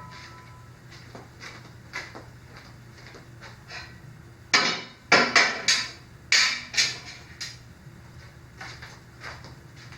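Fishing rods and C4 rod-holder hardware being handled on a garage door: scattered sharp knocks and clacks, with a quick run of loud knocks in the middle.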